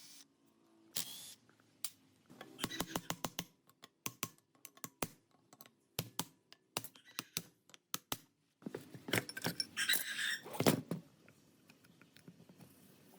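Irregular sharp clicks and knocks of hard objects being handled. A short scrape comes about a second in, and a longer stretch of scraping and rattling about nine to eleven seconds in.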